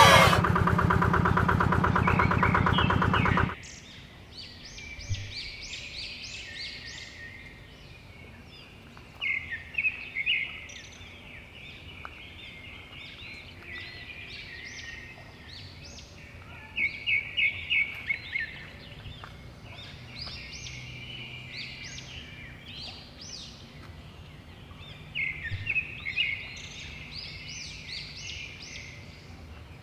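Yanmar hand tractor's single-cylinder diesel engine running loud and steady, stopping abruptly about three and a half seconds in. After that, birds chirp in short repeated bursts against a quiet outdoor background.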